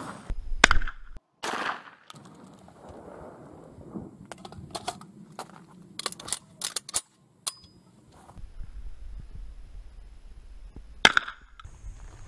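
A Derya MK-12 12-gauge semi-automatic shotgun fires twice in quick succession, followed by a run of sharp metallic clicks and clacks as the gun is handled. Later, over a low rumble of wind on the microphone, it fires one more loud shot near the end.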